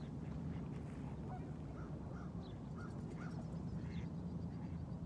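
Waterfowl calling from the water: a run of short honking calls, bunched between about two and four seconds in, over a steady low rumble.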